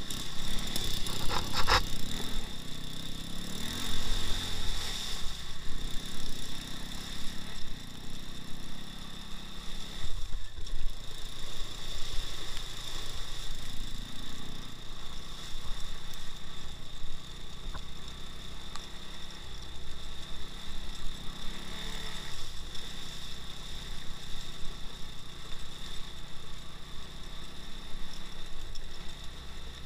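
Engine of a two-wheel-drive off-road motorcycle running while riding, its note swelling and easing every few seconds, with a few sharp knocks about one and a half seconds in.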